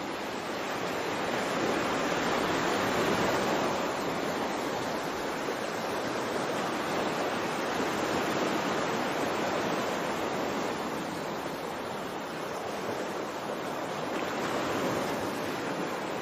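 Ocean waves washing in a steady rush, swelling and easing slowly every few seconds.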